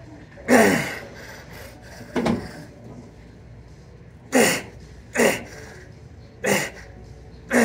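A man grunting and blowing out hard with the strain of each push on a seated chest press machine, about six short grunts a second or two apart, each dropping in pitch.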